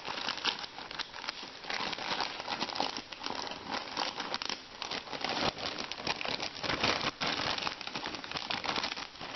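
Packaging crinkling and rustling as it is handled and unwrapped, a continuous run of small crackles.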